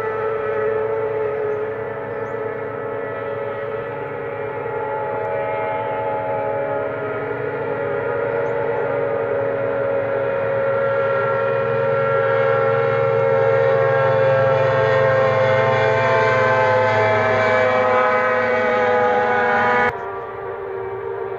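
Racing hydroplane boat engines whining at high revs, several engines at slightly different pitches at once. The sound grows louder toward the middle as the boats pass, drifts slowly down in pitch, and drops suddenly in level near the end.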